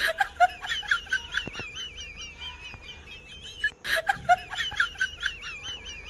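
High-pitched, rapid cackling in two bursts of about a second and a half each, one at the start and another about four seconds in.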